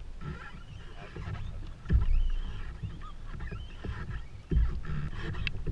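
Landing a blue catfish into a plastic fishing kayak: low rumbling wind and water noise, with two heavy low thumps, about two seconds in and again about four and a half seconds in.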